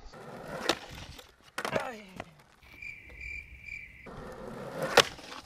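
Three short, evenly spaced high chirps like a cricket's, starting and stopping abruptly in the middle, set between sharp clacks; the loudest clack comes near the end.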